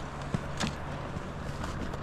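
A vehicle engine idling with a steady low hum over a noisy hiss, and two light knocks about a third and two thirds of a second in.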